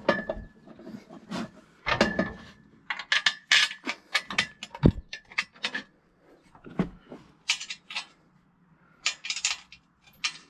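Steel sawmill frame parts and nuts and bolts being handled: irregular metallic clinks, knocks and clattering, two of them leaving a short ringing tone.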